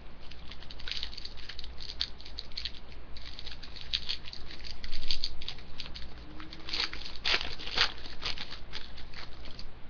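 Hockey trading cards being handled and flipped through by hand, a quick irregular run of crisp flicks and slides of card against card, busiest near the end.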